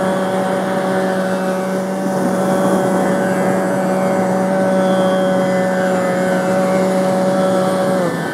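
A male Carnatic singer holds one long, steady note during a rāga Bhairavi ālāpana, over a tambura drone and the wash of ocean surf. The note stops about eight seconds in.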